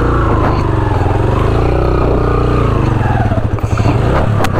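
Yamaha motorcycle's engine running hard under load as the bike climbs a steep, rocky dirt track, its pitch rising and falling with the throttle. A couple of sharp knocks come near the end.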